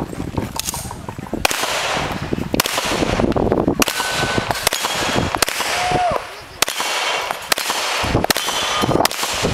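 About ten gunshots, roughly one a second, from a handgun fired at a shooting stage. Short metallic ringing follows some shots as steel targets are hit.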